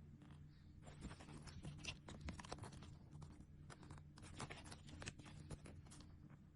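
Nail sticker sheets and their packaging being handled: soft, irregular crinkling and light taps in quick clusters, over a faint steady low hum.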